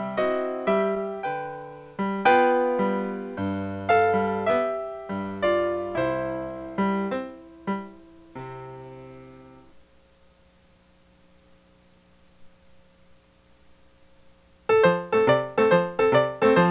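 Solo piano music: a run of struck, decaying notes that fades out about ten seconds in, leaving only a faint held tone, then a loud, fast passage breaks in near the end.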